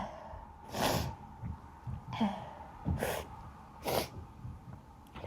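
A person with allergies sniffing and breathing sharply: four short, breathy bursts, each about a second apart, much softer than a full sneeze.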